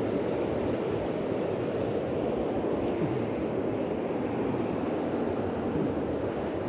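Steady rushing of flowing river water, an even noise that stays at one level throughout.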